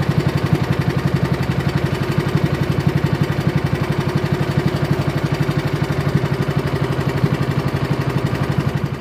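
Small engine of an outrigger fishing boat (bangka) running steadily underway, with a fast, even pulse.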